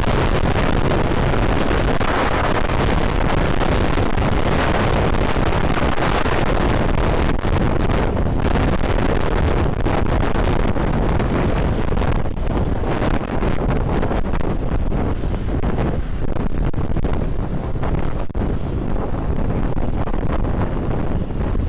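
Wind rushing hard over the microphone of a moving Honda Vario 125 scooter, a loud steady roar with the ride's running noise beneath it. It eases a little in the second half, with brief dips.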